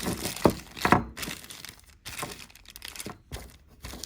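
Rustling and crinkling as a small hand tool is handled, with several sharp clicks and knocks, the two loudest about half a second and a second in.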